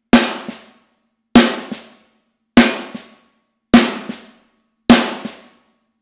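Snare drum played with one stick: a loud accent, then a soft ghost note a moment later off the stick's rebound. The pair repeats five times, about every 1.2 seconds.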